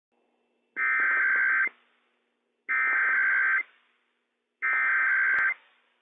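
NOAA Weather Radio SAME header: three identical bursts of harsh digital data tones, each just under a second, about a second apart. They are the coded opening of an Emergency Alert System Required Weekly Test. A small click falls near the end of the third burst.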